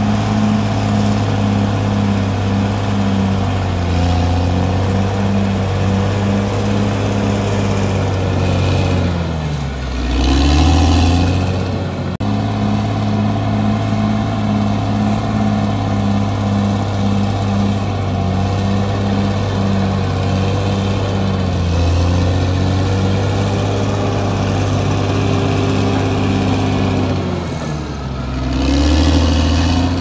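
Caterpillar D6R crawler bulldozer's diesel engine running steadily as the dozer pushes soil. Its pitch dips and climbs back twice, about ten seconds in and again near the end.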